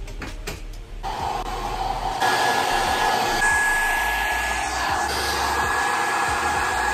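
Handheld hair dryer blowing on wet hair: a steady rush of air that starts about a second in and gets louder a second later, with a thin high whine on top.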